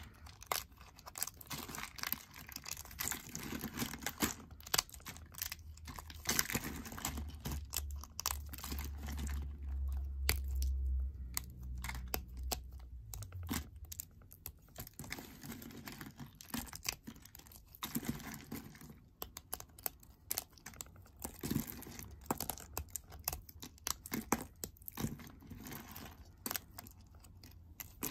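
Thin slices of green soap being snapped and crumbled between the fingers: quick, irregular crisp crackles and crunches, with a low rumble for several seconds in the middle.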